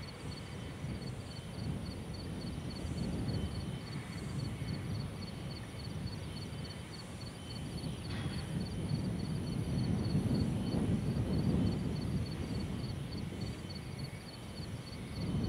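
Outdoor ambience: a low, rumbling noise that swells and fades, loudest about two-thirds of the way through, with a faint high chirp repeating a few times a second.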